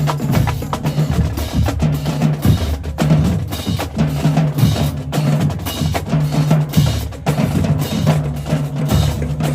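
Marching drumline playing: rapid snare drum strokes over repeated pitched bass drum notes.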